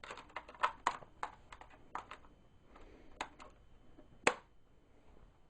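Plastic memory-compartment cover of a laptop being fitted back onto the underside of the case: a run of light plastic clicks and taps, with one sharper click about four seconds in as it seats.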